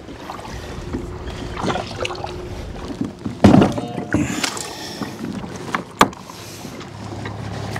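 Knocks and clicks of gear being handled on a plastic fishing kayak, the loudest a clunk about three and a half seconds in and a sharp click about six seconds in. A steady low hum sets in near the end.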